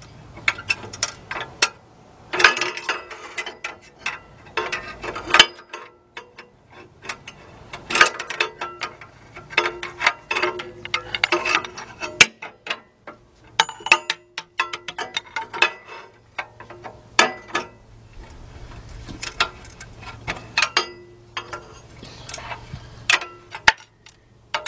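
Hand tools working a stubborn clamp bolt: a socket ratchet clicking and steel tools clinking against the metal clamp, in irregular spells with short pauses between them.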